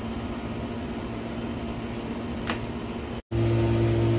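Room air conditioner running with a steady hum. About three seconds in the sound drops out for a moment, then the hum comes back louder and deeper.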